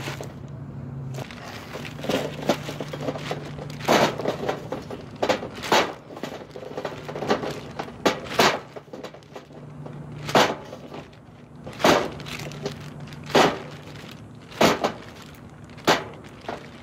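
Golf balls being dropped a few at a time into a plastic bag already full of golf balls, each drop a sharp click of ball on ball, about every one to two seconds, with the plastic bag rustling between drops.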